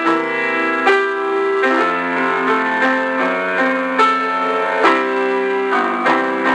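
Instrumental background music, with notes struck about once a second.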